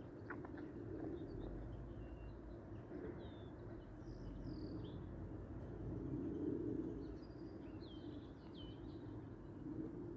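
Steady rolling rumble of a container train's freight wagons passing on the rails, swelling about six to seven seconds in, with birds chirping over it.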